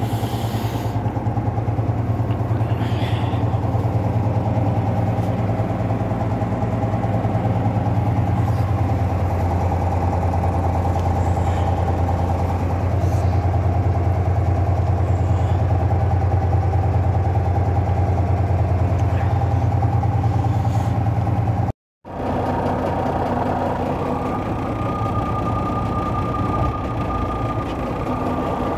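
Semi truck's diesel engine idling steadily, just started. The sound breaks off for a moment about two thirds of the way through, and a thin steady whine joins in over the last few seconds.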